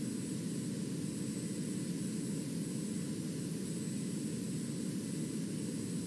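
Steady hiss of radio static with no voice, with a few faint steady tones in it.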